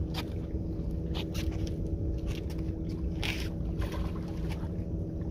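Steady drone of an engine running at a constant pitch, with a few short, sharp noises over it, the longest about three seconds in.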